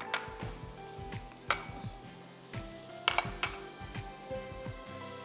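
Soft background music with steady held notes, broken by several sharp clinks of spoons and small spice bowls being handled on the counter.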